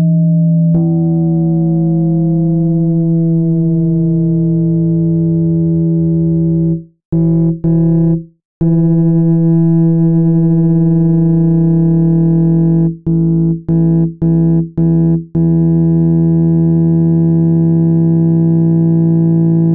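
Synthesizer tone held on a steady low 165 Hz note with its octave above, a frequency meant to shake water out of a phone speaker. Higher tones glide downward over the first few seconds. The sound cuts out abruptly a few times about a third of the way in, then in a stuttering run of five short gaps past the middle.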